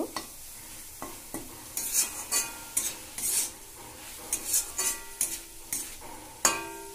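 Steel spatula scraping and stirring small prawns around a metal kadai as they fry crisp, over a low sizzle. Some strokes strike the pan with a brief metallic ring, the sharpest near the end.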